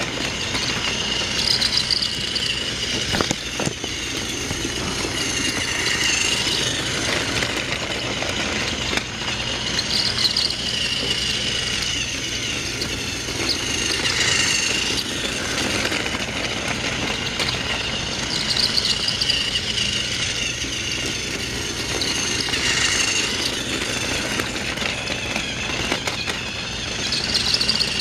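Motorised toy Thomas the Tank Engine running on plastic track with its cars: a steady whirring motor and rattling wheels, with a brighter rattle coming round about every four seconds.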